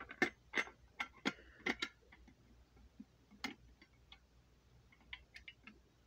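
Irregular hard clicks and knocks from handling a red T-bar fire alarm pull station. They come quickly in the first two seconds, then as a few fainter taps.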